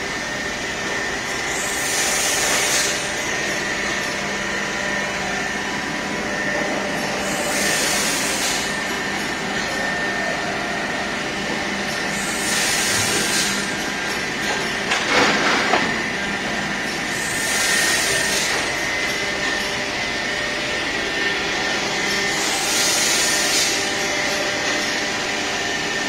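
Plastic injection moulding machine running: a steady mechanical hum with a faint high whine, broken about every five seconds by a short hiss. About midway comes one louder burst of rushing noise.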